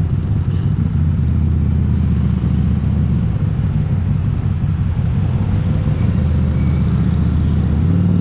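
Harley-Davidson Street 500's 500 cc V-twin, fitted with an aftermarket Vance & Hines exhaust, running at low, steady revs while riding slowly in traffic.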